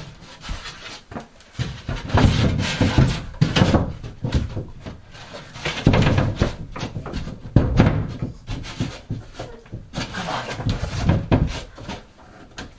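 A large wall panel being shoved and shifted against the wall by hand: bursts of rubbing and scraping with knocks and bumps, on and off throughout.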